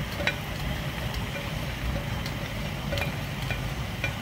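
Grated carrots slide off a plate into a pan of simmering rice water, with a few light clicks of the plate against the pan over a steady low rumble.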